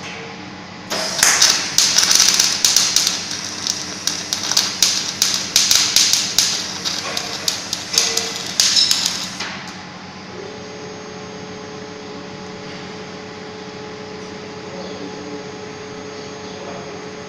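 Welding robot's arc crackling and sputtering in rapid irregular snaps, starting about a second in and stopping after about nine seconds. Then a steady machinery hum.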